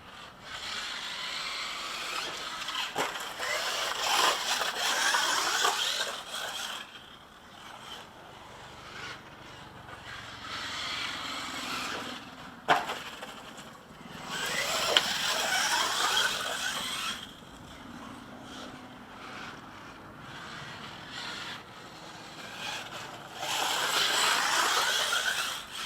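Electric-converted OFNA LX1 1/8-scale RC buggy driving laps, its electric motor and drivetrain whining up and down in pitch as it speeds up and slows. The whine swells in three louder passes, with a couple of sharp knocks around the middle.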